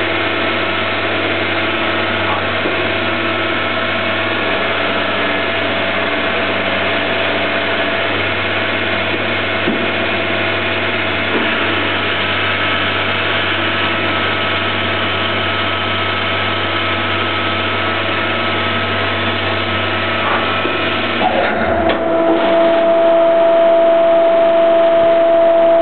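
Hydraulic copy lathe running: a steady machine hum from its motor and hydraulic pump. About 21 seconds in, the low hum drops away and a louder steady whine takes over.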